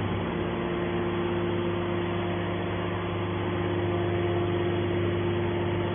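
Hydraulic power unit of a scrap metal baler running steadily: a constant motor-and-pump hum with a held tone over it.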